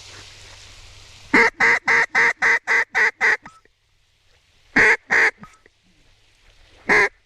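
Duck call blown in mallard-hen quacks to work passing ducks: a quick run of about eight quacks, then two more, then a single one near the end.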